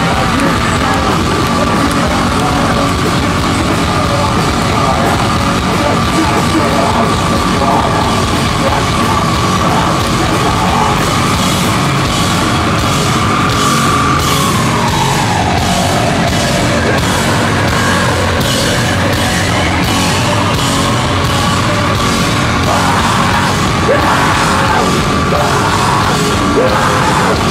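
Loud live heavy rock from a band. A held high note slides down in pitch about halfway through and then climbs back up, and regular beats run through the second half.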